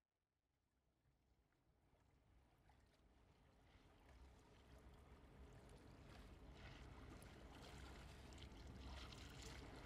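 Water ambience, lapping and trickling with a low rumble underneath, fading in slowly from silence.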